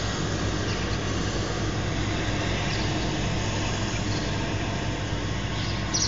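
Steady outdoor background noise with a low hum under it, and a few faint bird chirps, the clearest one near the end.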